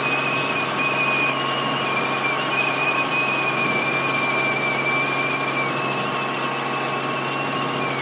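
Robinson R44 helicopter's piston engine and rotors running steadily, heard inside the cabin as it climbs away from the runway, with a high whine over the drone.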